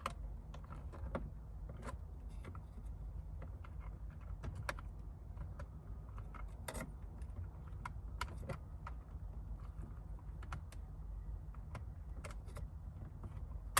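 Faint scattered plastic clicks and rattles of a wiring harness connector being worked onto a power window switch, over a low steady hum. A sharper click near the end is the connector latching onto the switch.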